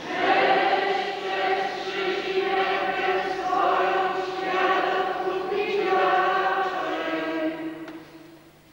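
Congregation singing a hymn verse together, with many voices in unison; the singing dies away shortly before the end.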